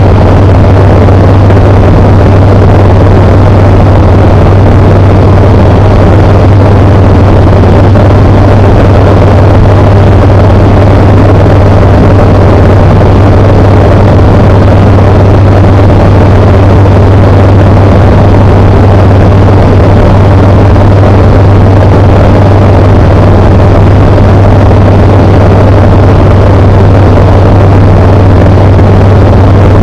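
Tecnam P92 Echo Super light aircraft's Rotax flat-four engine and propeller running at a constant cruise setting: a loud, steady, deep drone with no change in pitch.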